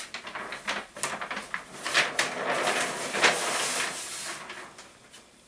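A large sheet of flip-chart paper is flipped over the top of the pad, crackling and rustling for about four seconds before it fades away.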